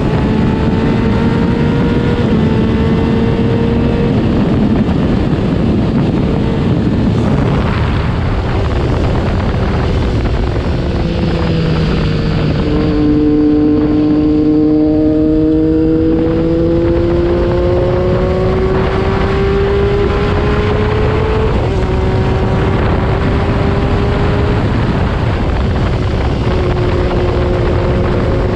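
Triumph Daytona 675R's inline three-cylinder engine, through a Yoshimura Alpha full exhaust, pulling up through the gears. Its pitch rises and drops back at each shift, under heavy wind blast on the camera microphone. Around the middle the wind eases and one long rising engine tone stands out.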